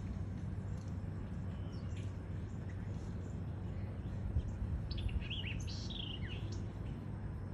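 Small songbirds chirping: a few faint chirps about two seconds in, then a quick run of falling chirps around five to six seconds in, over a steady low background noise.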